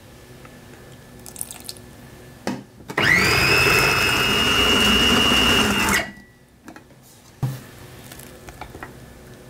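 Food processor motor spinning up with a quickly rising whine, then running steadily for about three seconds as it blends hummus thinned with chickpea cooking liquid, and stopping abruptly. A couple of light knocks come before it as the lid goes on.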